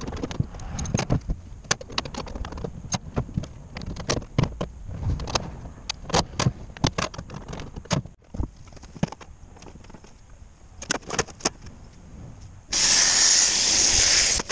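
Scattered clicks and knocks of hand work with small parts and tools. About thirteen seconds in, a loud steady whir starts: a hose-fed air tool cutting a metal sheet along a straightedge.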